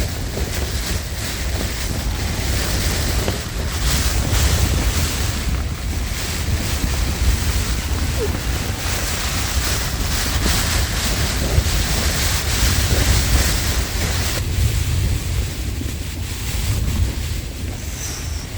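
Gale-force wind gusting and buffeting the microphone, a heavy low rumble that swells and eases, over a steady rushing hiss of wind and rain.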